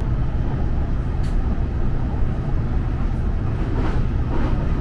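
Running noise heard from inside the cabin of a JR Chuo Line electric train travelling at speed: a steady low rumble of wheels on rail with a single sharp click about a second in.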